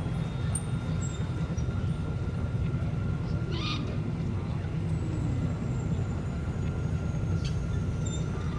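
Sci-fi desert-town ambience: a steady low rumble under faint high electronic tones, with a short chirping call about three and a half seconds in.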